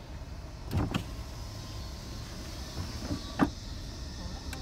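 Steady low cabin rumble of a minivan on the road, with a few short knocks, the sharpest about three and a half seconds in.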